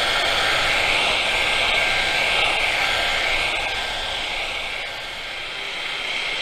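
Handheld electric rotary polisher running steadily, its spinning pad buffing the painted steel of a car door; it eases a little about five seconds in.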